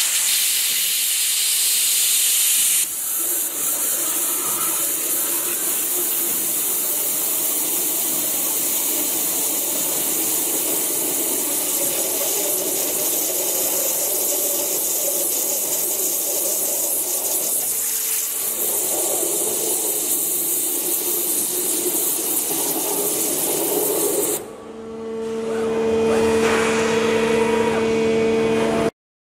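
STM PremiumCut waterjet cutting through a grinding stone, a loud, steady high-pitched hiss of the jet spraying. About 24 seconds in the hiss stops and a steady machine hum with low tones is left.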